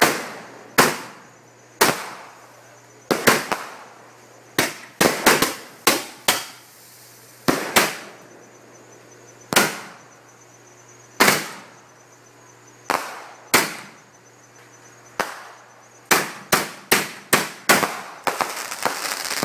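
Consumer fireworks going off: a long run of sharp aerial bangs, each trailing off with an echo, coming irregularly and then faster and closer together, ending in a thick crackling volley.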